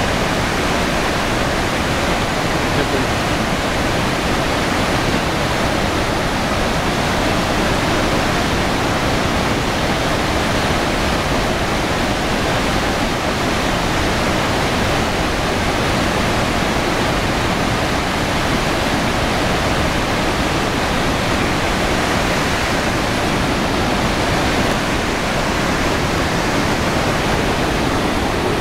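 Iguazu Falls: a large volume of river water rushing over the brink and falling, a loud, steady, unbroken roar of water.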